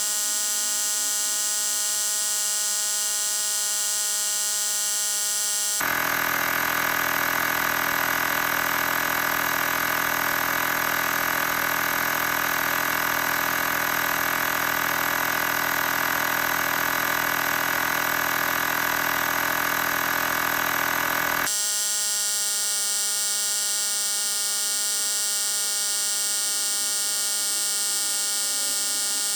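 Xiaomi Mijia portable air compressor running steadily, a buzzy motor-and-piston drone as it inflates a tyre. About six seconds in the sound switches abruptly to a slightly louder, fuller hum with more low end, and switches back just as abruptly about two-thirds of the way through.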